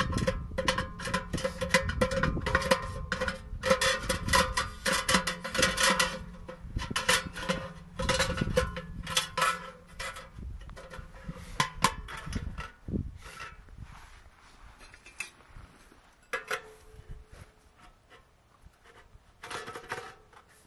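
Metal clinking and rattling as parts of a Gstove stainless steel camp wood stove are handled and fitted together, each tap ringing briefly. Busy for the first dozen seconds, then sparse, with a few more ringing knocks near the end as a chimney pipe section is slotted onto the stove.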